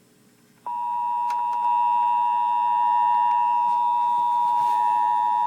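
Emergency Alert System attention signal, a steady two-tone beep near 853 and 960 Hz, coming on sharply less than a second in after a short silence and growing louder about a second later.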